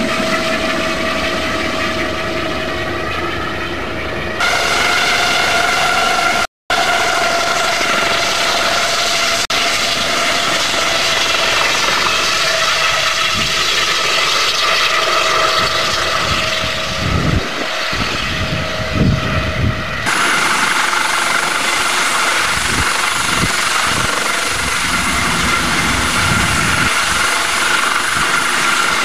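Aérospatiale Dauphin helicopter running, its turbines and rotor giving a steady rushing sound with a high whine on top. The sound jumps abruptly a few times, with one brief dropout, and a few low thumps come past the middle.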